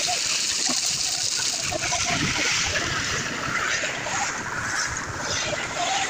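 Wet concrete sliding out of a tipped metal wheelbarrow pan and splashing down into a footing over rebar mesh, a steady rush that eases around four seconds in.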